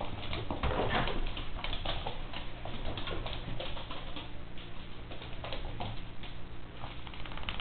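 Miniature pinscher puppy's claws clicking and pattering on a laminate floor as it runs and jumps about in play, an irregular run of quick clicks.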